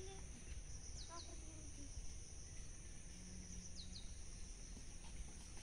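Outdoor ambience: a steady high-pitched insect drone, with a bird giving a pair of quick falling chirps about a second in and again near four seconds, over a low background rumble.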